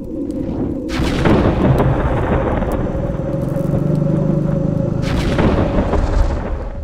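Logo-sting sound effects: a low swell breaks in loudly about a second in and holds as a dense, low rumble with a steady hum. It surges again about five seconds in and fades out near the end.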